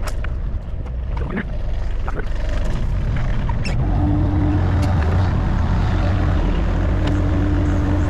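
Engine of a piece of digging equipment running steadily, building up a few seconds in, with a whine that comes and goes, while gravel is brought in to bed the sewer pipe. A few light knocks early on.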